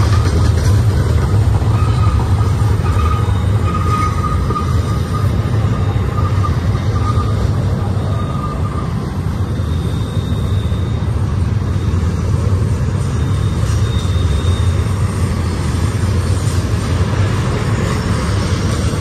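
Double-stack intermodal container cars of a freight train rolling past on a curve: a loud, steady rumble of steel wheels on rail. A thin wheel squeal comes and goes through the first half.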